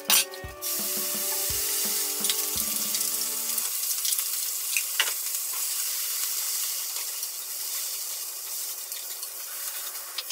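Sauce hitting a hot frying pan of lotus root slices being made into teriyaki: a loud sizzle starts suddenly about a second in and slowly dies down as the slices are stirred with chopsticks, with a couple of light clicks of chopsticks on the pan.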